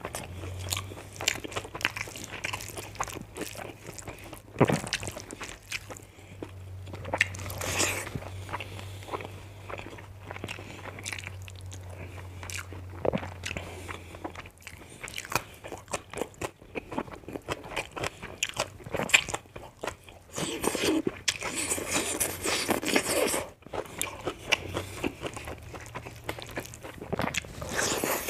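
Close-up eating sounds: a person biting and chewing a meal of fried pork sausage, rice and fresh greens, with crunchy bites and irregular clicks, busiest a few seconds before the end.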